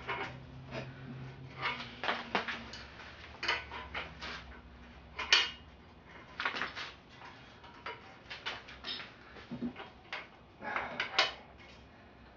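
Irregular metal clinks, clanks and scrapes of a bottom bracket tool and wrench working against a bicycle's seized, rust-crusted bottom bracket that will not loosen. The sharpest clanks come about five seconds in and again near the end.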